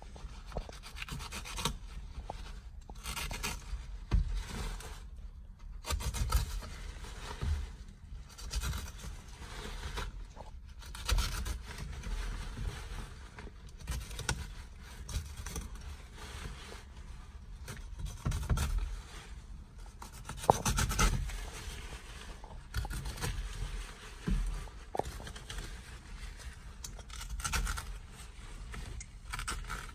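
Deployed steering-wheel airbag being cut out with a utility knife: irregular rasping and rubbing of the blade and the stiff airbag fabric, with occasional dull knocks.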